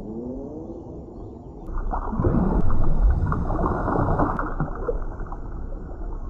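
Underwater recording: a rumbling water background with a few low rising calls at first, then from about two seconds in a louder rush of water noise with clicks and low moaning calls.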